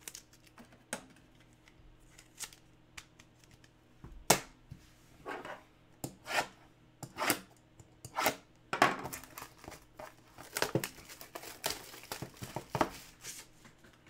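Cellophane shrink wrap on a sealed trading-card box being slit with a utility knife and torn away: a run of irregular short rips, scrapes and crinkles, busier and louder from about four seconds in.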